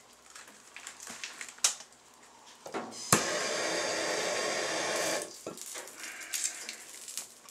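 A soldering torch clicks alight about three seconds in, hisses steadily for about two seconds while heating a copper pipe joint, then shuts off suddenly. Light clicks and knocks come before and after it.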